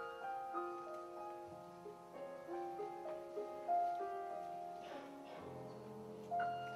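Grand piano playing a gentle introduction in flowing broken chords, each note ringing on under the next, with low bass notes joining about one and a half seconds in and again near the end.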